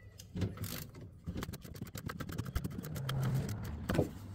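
Hand ratchet clicking in a fast run as it snugs down the self-locking nuts on an air-intake box mount, with a couple of knocks of the tool against the box. A low steady hum sits underneath.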